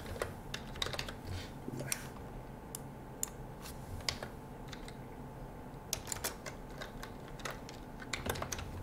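Computer keyboard keys clacking as a word is typed, in short irregular runs of keystrokes with pauses between them, over a faint steady low hum.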